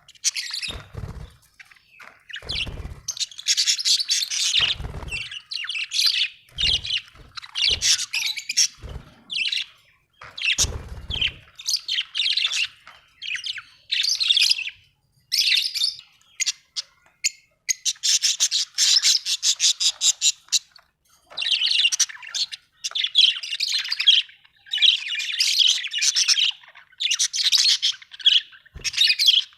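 Budgerigar chirping and chattering in quick bursts, with rapid chatter and harsher squawky calls. Several short low thumps come in the first third.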